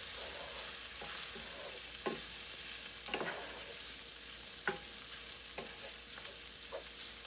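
Beef, mushrooms and garlic frying in a skillet with oil and soy sauce, sizzling steadily, with a utensil scraping and knocking against the pan now and then as it is stirred.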